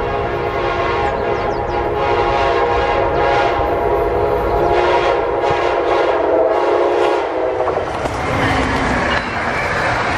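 Electric passenger locomotive's horn sounding one long blast as the train approaches, cutting off about eight seconds in. The locomotive and coaches then rush past with wheel and rail noise.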